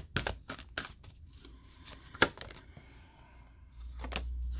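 A deck of oracle cards being shuffled by hand: a run of quick card clicks, then one sharp snap a little after two seconds in. Near the end the cards give a low rumble as they are handled.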